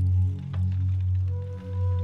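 Background music: held, steady tones over a deep pulsing bass.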